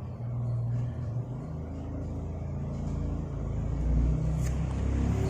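Low, steady rumble like a motor vehicle's engine, growing somewhat louder about three to four seconds in.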